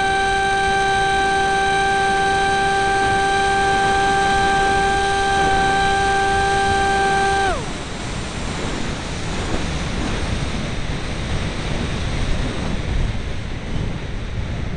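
Electric motor and propeller of an RC flying wing heard from its onboard camera, a steady high whine that is cut about halfway through and falls away in pitch. After that, air rushes over the airframe and microphone as the wing glides down to land.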